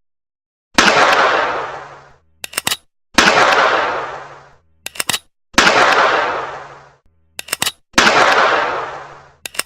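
Revolver fired four times, about two and a half seconds apart, each shot echoing and fading away over a second or so. Before each shot comes a quick run of two or three metallic clicks, the hammer being cocked.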